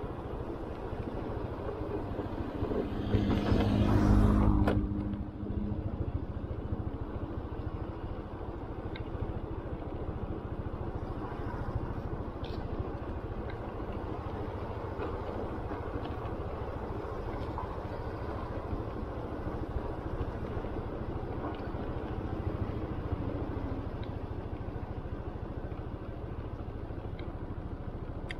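Motor scooter running at low speed, with steady engine and road noise. A louder spell about three to five seconds in lasts a couple of seconds.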